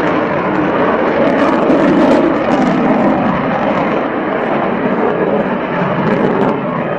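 Lockheed Martin F-22 Raptor in flight, its twin Pratt & Whitney F119 afterburning turbofans making a loud, steady jet roar, with a few brief crackles.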